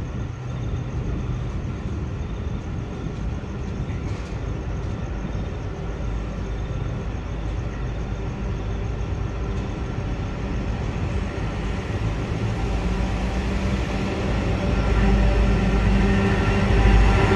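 Two diesel locomotives running light, C class C510 and 442 class 44206, approaching: a steady diesel engine drone and low rumble that grows louder through the last few seconds.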